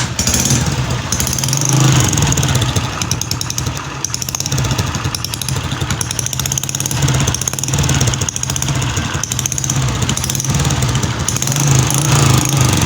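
Honda CG 125 single-cylinder four-stroke engine idling with a harsh, rapid tick-tick noise that sounds as if it comes from the cylinder head. The mechanic traces it to a damaged Euro 2 emission pressure pipe that the noise is escaping from.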